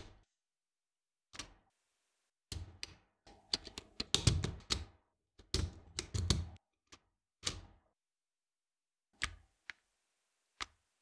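Lego Technic plastic parts clicking and knocking as they are handled and pressed together on a tabletop: a single click, then a busy run of quick clicks and taps, then a few sparse clicks near the end.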